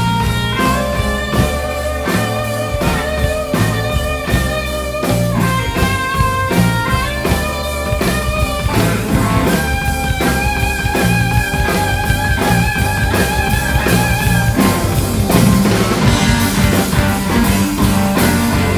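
Live blues band playing an instrumental passage: electric guitar over electric bass and drum kit.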